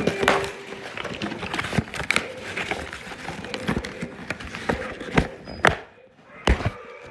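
Irregular plastic clicks, knocks and crinkling from handling a toy T-rex and its packaging, with a steady tone that stops about a second in.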